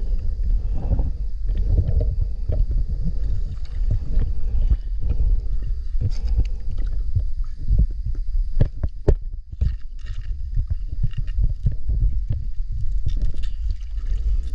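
Water sloshing and moving around the microphone, with muffled knocks and bumps throughout and a few sharper clicks in the middle.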